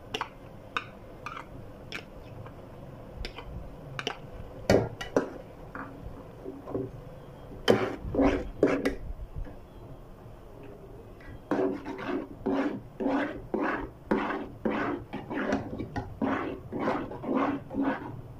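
Metal ladle knocking and scraping in a metal pot of thick kidney bean curry. Scattered taps come first, then a louder cluster of knocks about halfway through, then steady stirring strokes, about two to three a second, through the second half.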